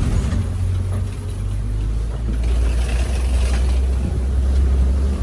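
Safari ride truck driving, a steady low engine rumble with road noise.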